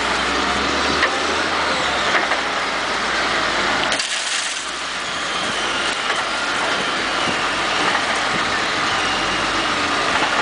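A heavy machine running as it crushes the body of a Ford Crown Victoria, with dense crunching of metal and glass, scattered sharp cracks and a few high metal squeals; the sound changes abruptly about four seconds in.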